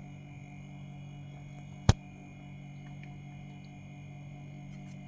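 Refrigerator compressor running with a steady hum after a freon recharge, with one sharp click about two seconds in.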